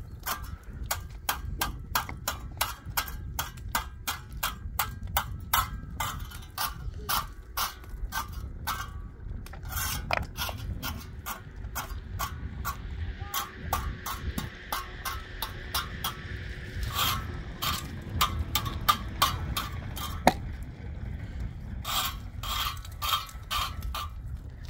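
Sharp repeated clicks or knocks, about three a second, over a low rumble, with a short break about halfway through.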